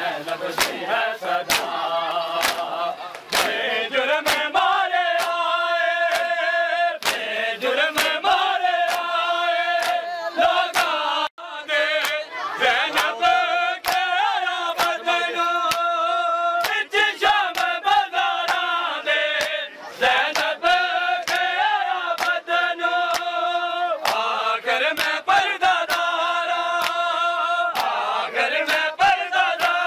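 Men chanting a noha, a Shia mourning lament, in unison. Regular sharp slaps of hands on bare chests (matam) keep time with it.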